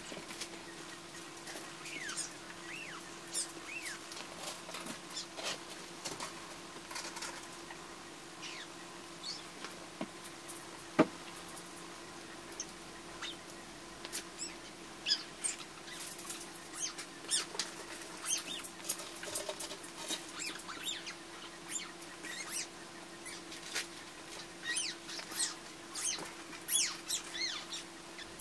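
Young kittens mewing and squeaking in short, high-pitched calls, over a faint steady hum, with one sharp click partway through.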